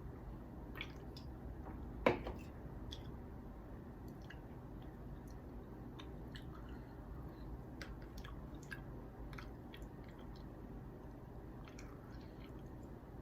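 A person chewing a mouthful of corn kernels, with small wet mouth clicks throughout and one sharper click about two seconds in.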